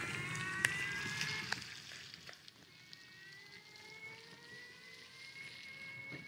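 Electric drive motor of a ride-on toy car whining as it accelerates, its pitch rising steadily; the whine is loud for the first second or so, then drops away as the car drives off, with a couple of sharp clicks early on.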